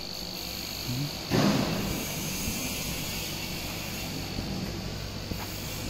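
CO2 laser cutter cutting 3 mm stainless steel sheet: a steady hiss with a high whine over machine noise, and a louder burst of noise about a second in that fades over half a second.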